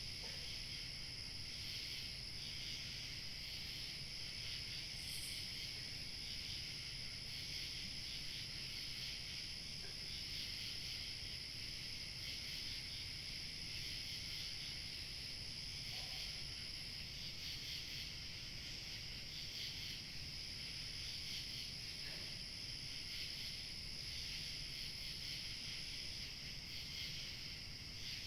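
Chorus of crickets chirping steadily, a dense high chirring with a thinner, higher trill above it that drops out for a few seconds past the middle and again near the end. A faint low rush of light wind lies underneath.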